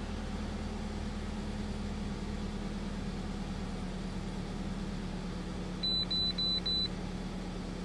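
2004 Toyota Camry idling, a steady low hum inside the cabin. About six seconds in, a Zurich ZR13 OBD2 scan tool gives four quick high beeps as it finishes linking to the car's computer.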